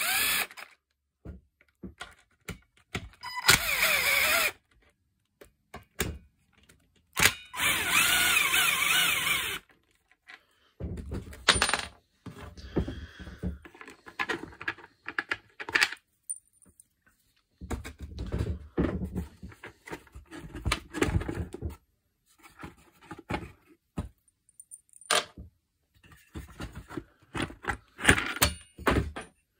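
A cordless drill-driver running in three short bursts in the first ten seconds, backing out Torx screws from a plastic engine cover. After that come scattered clinks, knocks and rattles of loose screws and plastic parts being handled.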